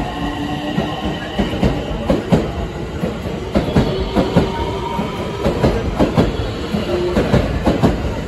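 JR West 225 series 100 subseries electric multiple unit gathering speed out of a station, its cars rolling past close by with a steady rumble and repeated sharp clicks of wheels over the rail joints.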